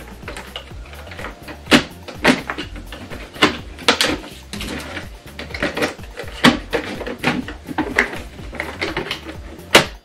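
Irregular plastic clicks and knocks as the body of a Miele C3 canister vacuum cleaner is handled and lifted, over quiet background music.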